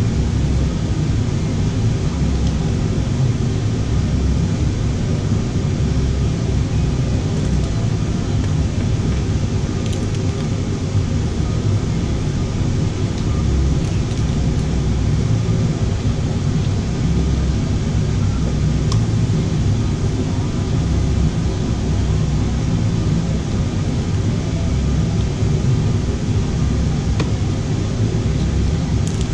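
Steady, loud rumbling noise with a hiss over it, running without a break, and a few faint clicks.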